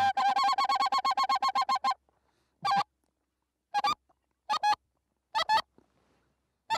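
Goose honking: a rapid run of about sixteen short honks in the first two seconds, then single and paired honks about a second apart.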